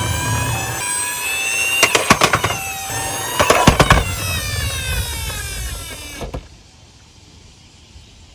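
A toy ambulance's electronic siren wails in repeated rising and falling sweeps, mixed with a two-tone hi-lo pattern, while the plastic toy rattles down a wooden slope with a few clattering knocks. The siren cuts off suddenly about six seconds in.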